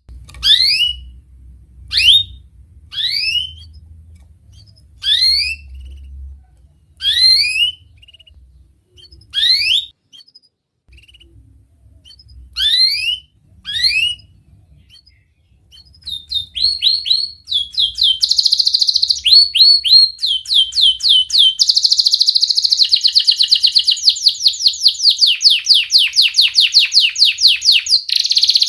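Domestic canary singing: sharp, rising "wit" notes about once a second for the first half, then breaking into fast, rapid "cuit cuit" rolling trills that run on without a break through the rest.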